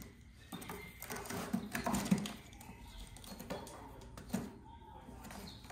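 A cat scuffling and thumping on a hard vinyl floor as it pounces on and rolls after a feather wand toy. There is a run of scrapes and knocks in the first two seconds, loudest near the end of that run, then a couple of single knocks.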